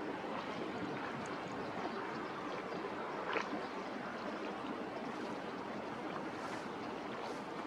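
Steady harbour ambience: an even wash of water and wind noise, with one short click about three seconds in.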